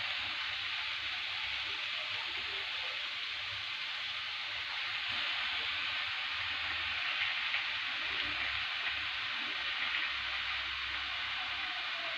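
Grated bottle gourd frying in hot ghee in a pan: a steady sizzling hiss with a few faint crackles.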